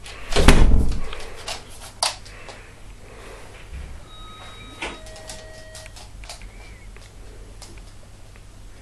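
A heavy thump about half a second in, then light knocks and clicks, and around the middle a few brief, thin, high whines from a Rottweiler left alone and crying for her absent owner.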